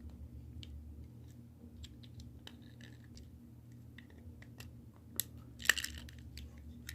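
Scattered small clicks and scrapes of a tool working at the brittle old plastic housing of a Mercedes seat-adjustment switch as it is pried apart, with a short run of louder scratchy clicks a little after five seconds in. A steady low hum lies underneath.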